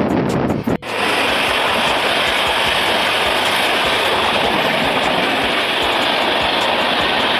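Wind buffeting the microphone for under a second, then a sudden cut to the loud, steady rush and wheel clatter of an express train passing close by on the adjacent track, heard from the open door of a moving train.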